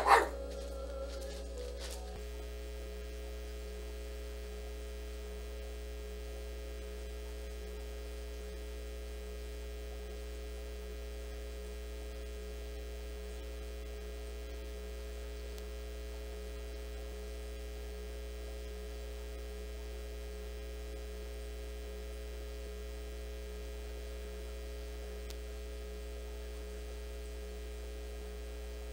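Steady electrical mains hum made of several constant low tones, unchanging throughout. A brief loud sound comes right at the start.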